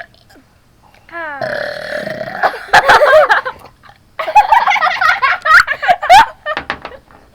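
Kids burping one after another: a long drawn-out burp starting about a second in, then louder, high-pitched, wavering vocal burps and noises with a few sharp sputtering clicks.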